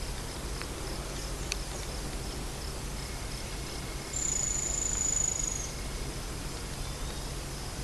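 Forest insects calling: a steady, pulsing high-pitched chorus, with one insect's high trill rising above it for about a second and a half near the middle.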